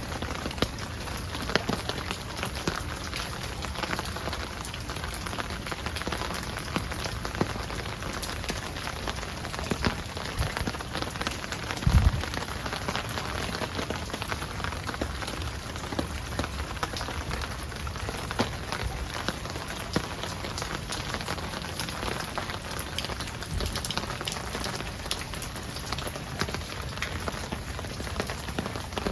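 Steady rain falling, with many close drops ticking on an umbrella overhead. A single brief low thump about twelve seconds in.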